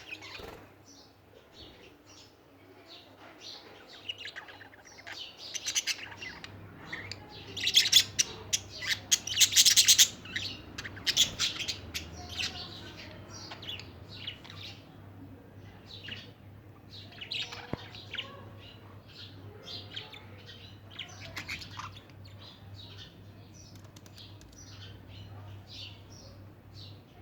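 Budgerigars chirping and chattering in many quick, short calls, loudest in a dense run of rapid calls about eight to ten seconds in.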